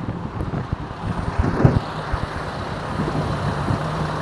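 Diesel engine of an articulated flatbed lorry driving past, settling into a steady low drone from about three seconds in. Wind buffets the microphone, with a few knocks early on.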